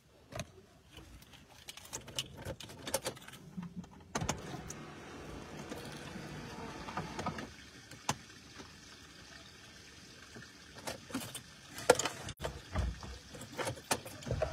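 Scattered clicks, knocks and rustles of a phone being handled inside a car cabin, with a steadier low rumble for a few seconds in the middle.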